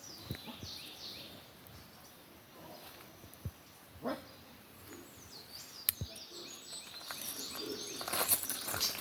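Birds chirping: quick runs of short, high, falling notes near the start and again about five seconds in. Scuffing and rustling sounds build up near the end.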